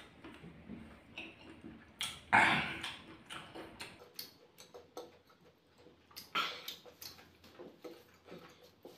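Close-miked chewing and wet mouth clicks of a person eating spicy food, with two louder mouth sounds about two and six seconds in.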